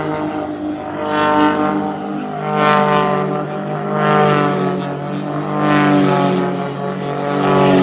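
Aircraft engine drone with many steady pitched tones, swelling and fading in a slow beat about every one and a half seconds.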